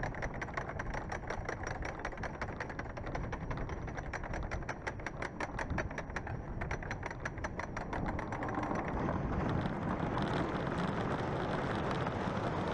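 A motor running with a steady rumble and a rapid, even ticking of several strokes a second; the ticking fades into the rumble about eight seconds in.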